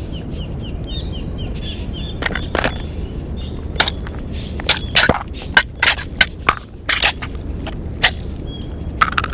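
A clear plastic lure box being handled and opened, giving a string of sharp plastic clicks and cracks from about two seconds in, over a steady low background rush. Rapid high chirping sounds in the first two seconds.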